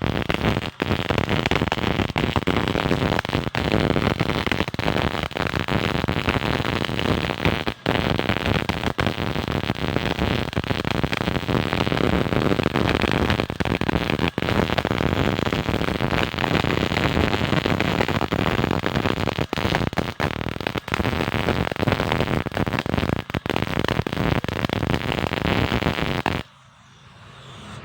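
Electric welding arc crackling and sizzling steadily, broken by a few momentary gaps, then cut off suddenly near the end.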